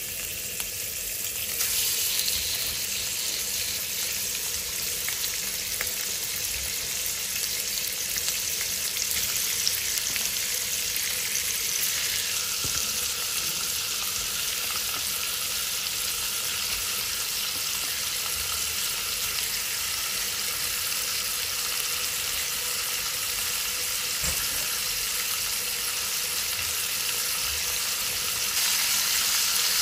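Raw chicken thigh pieces sizzling in hot oil in a pan as more pieces are laid in; a steady high frying hiss that grows louder about two seconds in and again near the end.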